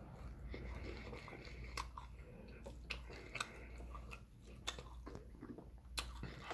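Close-miked chewing of fried chicken, with scattered sharp crunches of the crispy coating, over a low steady refrigerator hum.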